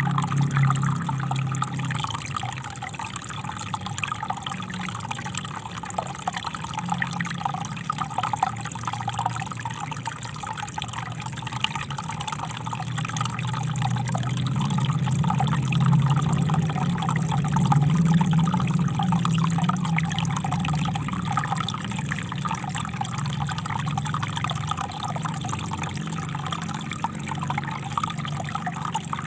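Small river flowing steadily, water trickling and splashing over stones, with a low rush that swells a little about halfway through.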